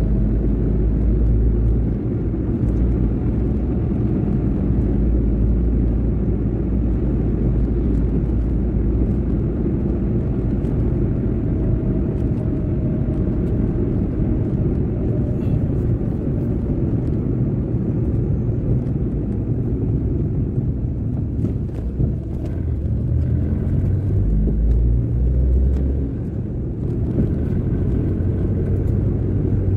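Moving vehicle's steady low rumble of engine and road noise, heard from on board as it drives along an open road, with a faint tone that drifts slightly in pitch.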